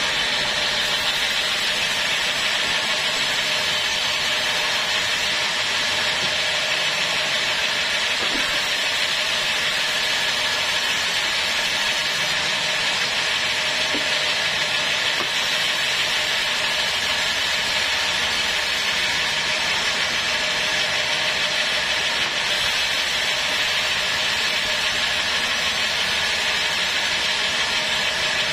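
Sawmill band saw running steadily while a log is pushed through the blade, giving an even, unbroken cutting noise.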